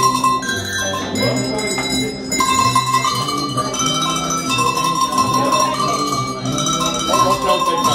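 Tuned hand-held cowbells rung by a group, playing a simple melody note by note, with the bells' ringing tones overlapping.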